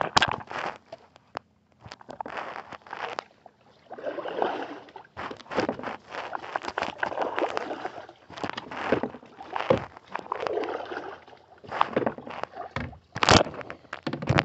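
Kayak paddling: water splashing and sloshing in irregular swells with each stroke, with a sharp knock near the end.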